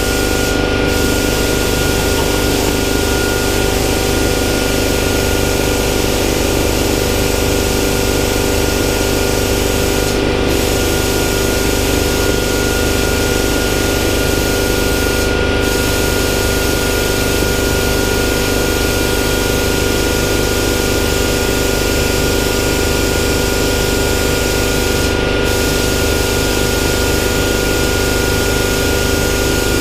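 Hypertherm 65 plasma cutting system on a CNC plasma table running: a loud, steady hiss with a steady whine through it. The hiss drops out for a moment four times.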